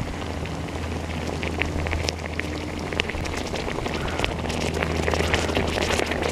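Chicken broth in an open can sizzling and crackling as a lump of molten aluminum boils it. The pops start about a second and a half in and come faster toward the end, over a steady low hum.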